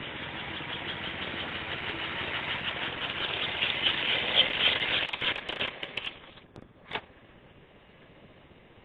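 American Flyer S-gauge toy train running on its track, a steady rattling whir with fine clicks that grows louder as the locomotive and cars roll past. It dies away about six seconds in as the train stops, followed about a second later by one sharp click, then a faint hum.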